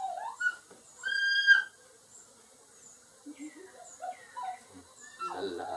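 Animal calls: short chirps repeating in the background, and one loud, steady whistled note lasting under a second about a second in.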